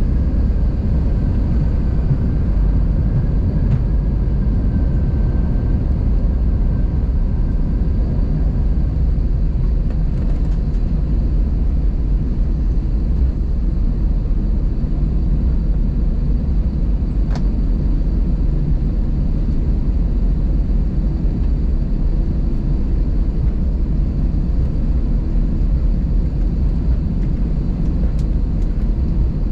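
Steady low rumble heard from inside the cabin of an Airbus A320 airliner: jet engine and airflow noise. A faint high tone fades out over the first several seconds, and there is a brief click about halfway through.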